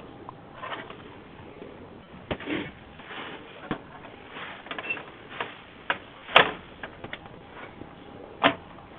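Scattered clicks and knocks of hardware being handled as an ATX motherboard is set into a PC case over its standoffs, with two louder knocks about six and a half and eight and a half seconds in.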